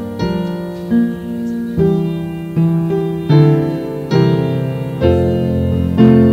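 Slow piano music: struck chords held and changing about once a second, with a deep bass note coming in about five seconds in.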